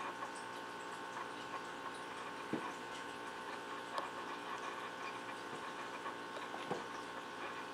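A steady hum of a few constant tones runs throughout, with faint, irregular light taps and scratches on top, the clearest about two and a half, four and nearly seven seconds in.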